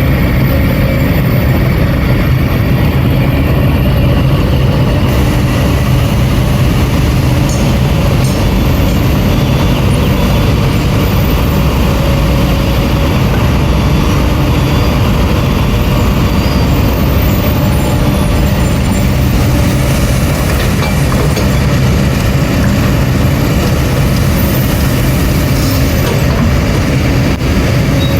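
Heavy diesel earthmoving machinery, an excavator working beside a dump truck, running steadily and loudly, with most of the sound low and no breaks.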